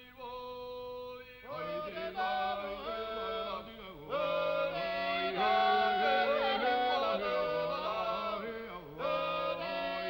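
Music: polyphonic folk singing. A single voice holds a long note, other parts join about a second and a half in, and the sound grows fuller and louder about four seconds in, with pitches sliding between notes.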